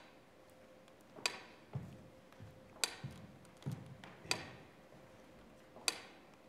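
Sharp clicks at a slow, very even pace, about one every second and a half, each echoing briefly in a reverberant hall, over a faint steady hum.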